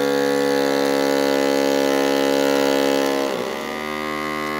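FoodSaver handheld vacuum sealer running on the valve of a zipper bag, pulling the air out around the shotgun shells inside: a steady motor hum with several pitches. About three seconds in, its pitch dips briefly and it runs on a little lower and quieter.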